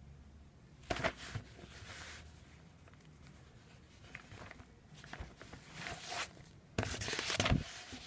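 Rustling and handling noises, louder about a second in and again about seven seconds in, with fainter scuffs between.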